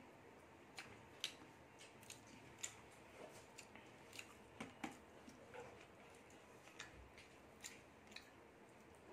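Faint, scattered small clicks and squishes, a few each second, as fingers knead rice with chicken curry on a ceramic plate.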